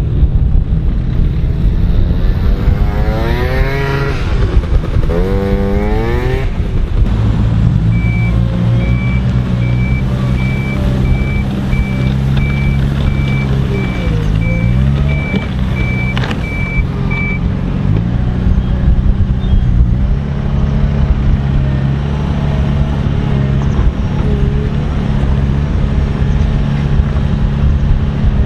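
Heavy diesel construction machinery running, its engine revving up twice in the first few seconds, then a reversing alarm beeping evenly for about ten seconds over the engine.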